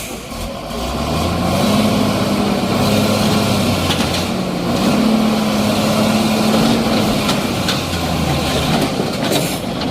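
Heavy vehicle engine revving up about a second in, holding its revs, dipping briefly in the middle and coming back up, then easing off and picking up again near the end.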